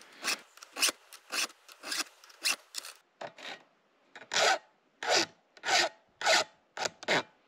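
Hand file scraping a chainsaw chain in steady strokes, about two a second. About three seconds in, the round file on the cutters gives way to a flat file dressing the depth gauges, and the strokes are louder.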